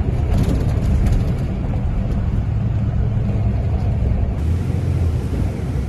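Steady low rumble of road and engine noise heard from inside a moving vehicle travelling at highway speed.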